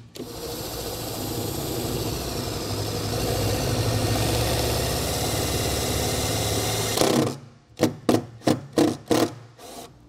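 Cordless impact driver driving a self-tapping screw through a trailer-connector bracket into an aluminum truck bed. It runs steadily for about seven seconds and cuts off suddenly, then gives several short bursts as the screw is run in a little more, not yet fully tightened.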